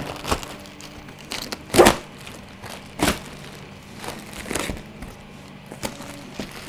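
Clear plastic packaging crinkling and tearing as it is cut and pulled open by hand, with several sharp crackles, the loudest just under two seconds in.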